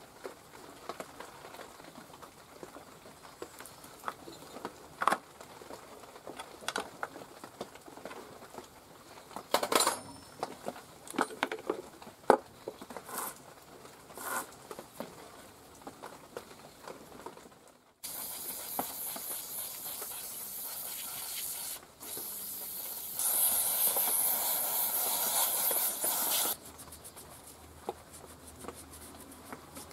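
Scattered small clicks and knocks of parts and tools being handled on a chainsaw, then about 18 seconds in a steady spraying hiss that runs for several seconds, louder for its last three, and cuts off suddenly.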